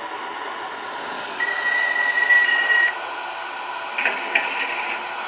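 MTH R40 subway model train's DCS sound system and running gear: a steady running hum with a held electronic tone for about a second and a half, then a few sharp clicks near the end.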